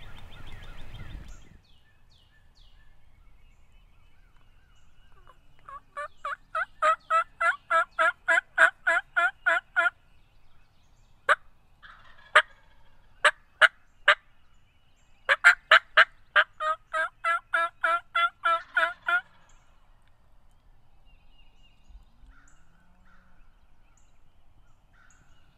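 Turkey yelps: a run of about sixteen evenly spaced notes, about four a second, growing louder. Then five short, sharp clucks a second or less apart, then a second run of yelps.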